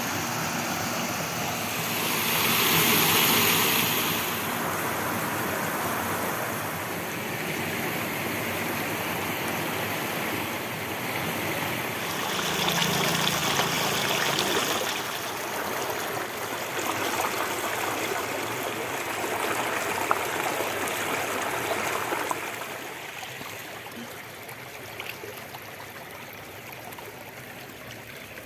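Shallow stream water rushing steadily over a small weir and across rocks, somewhat softer in the last few seconds.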